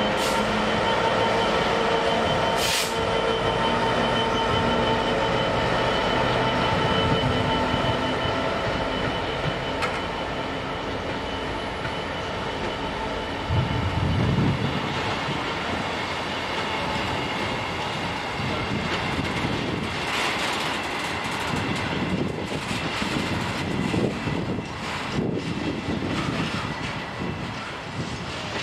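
GB Railfreight Class 66 diesel locomotive (EMD two-stroke V12) passing with a freight train, followed by the wagons rolling by. There is a brief low rumble about halfway through, and in the second half the wagon wheels clatter over the pointwork as the train moves away.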